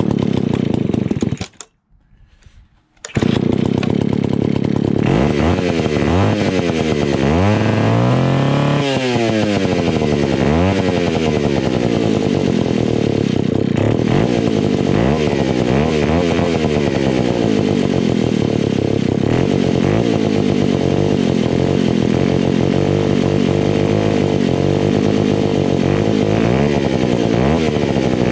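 Vintage Alpina Pro 120 two-stroke chainsaw (120cc) starting with a short burst, falling silent, then catching about three seconds in and running, revved up and down repeatedly. It has just had its carburettor rebuilt with a new kit, and the owner takes it to be low on compression from a scored piston and cylinder.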